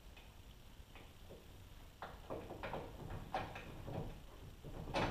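Short metal knocks and clicks of a front strut being worked by hand into the steering knuckle, a quick uneven run of them starting about two seconds in, the loudest near the end.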